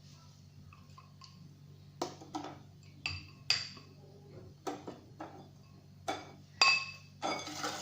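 A utensil knocking and scraping against a mixing bowl or container, about eight short clinks that ring briefly, as the proofed yeast mixture is emptied into the liquid batter. A denser, steadier noise starts near the end.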